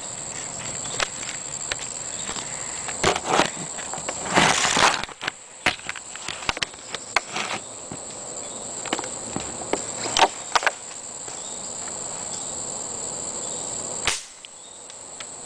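Steady high drone of crickets and other insects, broken by scattered sharp clicks and a brief louder rush of noise about four and a half seconds in.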